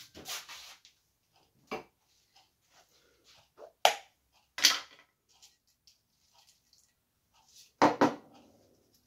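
Sharp clicks and knocks from handling a small glass jar with a plastic lid over a cooking pot. There is a loud click about four seconds in, a brief rustle just after it, and a loud double knock near the end.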